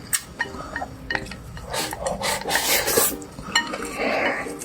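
Eating utensils scraping and rubbing against a bowl of rice with scrambled eggs and chives, with a few light clinks, as the food is mixed and scooped up.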